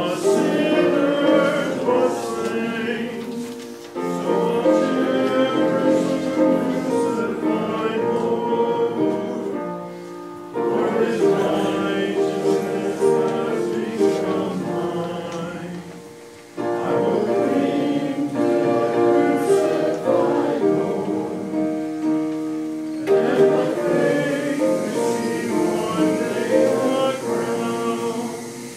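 A hymn sung by several voices, in phrases of about six seconds with a short break between lines.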